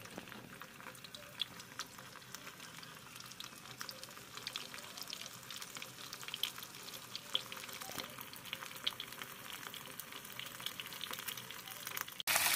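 Butterflied milkfish (bangus) frying in hot oil in a pan: a steady, faint sizzle with scattered crackling pops, turning louder near the end.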